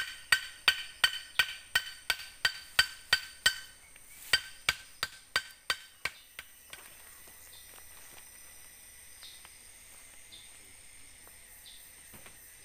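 A knife chopping on a cutting board in quick steady knocks, about three a second, with a slight ringing. The chopping pauses briefly near the middle, resumes, and stops a little past halfway, leaving a faint steady hiss.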